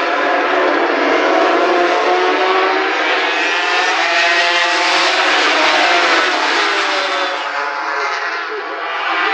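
A pack of small racing motorcycles at full throttle, several engines running at high revs together, their pitches rising and falling as the riders shift and pass. The sound eases briefly near the end.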